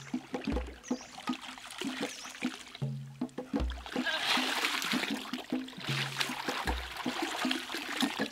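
Water splashing and dripping as a large fish is hauled up out of a shallow stream, loudest in the middle, over background music with a repeating beat and a low bass note about every three seconds.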